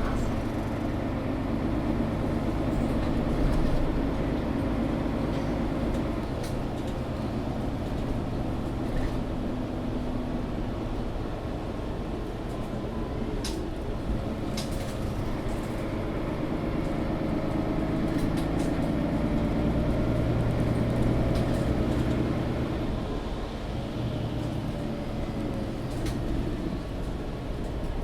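Cabin sound of a Mercedes-Benz Citaro (O530) facelift articulated city bus on the move: the diesel engine and drivetrain run steadily, their note drifting up and down with speed, a little louder a few seconds past the middle. A few short clicks or rattles come from the cabin near the middle.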